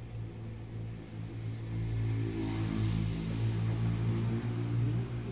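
A motor vehicle's engine running nearby, swelling louder about two seconds in, over a steady low hum.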